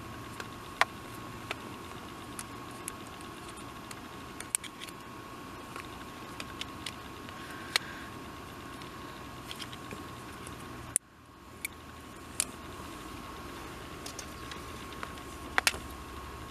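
Scattered small clicks and ticks of an object being handled, over a steady hiss and a faint steady high whine. The sound drops out abruptly for a moment about eleven seconds in, then comes back.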